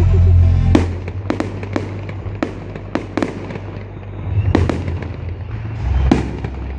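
Aerial fireworks shells bursting in a string of about ten sharp bangs, with crackle between them, over music with a deep steady bass that is loudest at the start.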